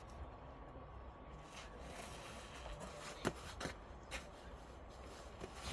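Snow crunching and scraping in a run of soft rustles, with a few sharper crunches about three and a half seconds in, over a low rumble of wind on the microphone.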